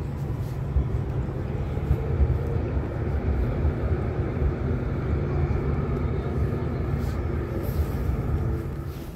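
Street traffic: a motor vehicle's engine running steadily under a low rumble, easing off near the end.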